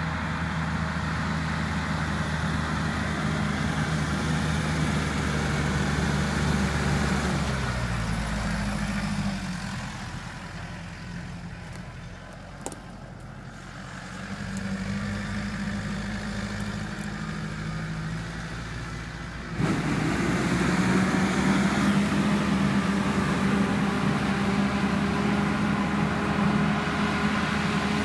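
LS XR50 tractor's diesel engine running as it tows an orchard sprayer. The sound drops quieter about a third of the way in, builds back, then turns suddenly louder about two-thirds of the way through.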